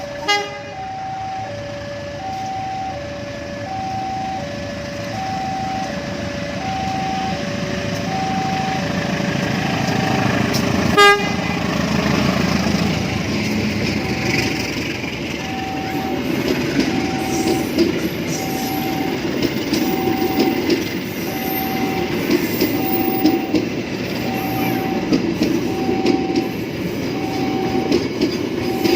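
Railway level-crossing alarm sounding its repeating two-tone warning, while a train's rumble builds from about halfway through. A sharp click comes about a third of the way in.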